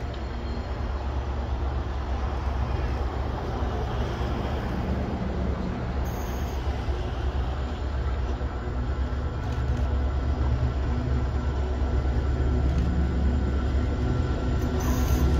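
G class diesel-electric locomotive hauling a container train, its engine running with a steady low drone along with rail noise, growing louder as it approaches.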